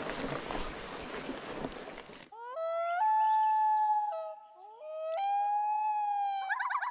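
Riding noise from a fatbike on a forest trail, picked up by the action camera, for about two seconds, then cut off abruptly. It is followed by clear whistled notes, each held for about a second and joined by rising glides, ending in a fast warbling trill.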